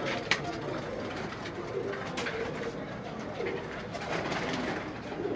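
Domestic pigeons cooing in a loft, low repeated coos, with a few sharp clicks, the loudest just after the start.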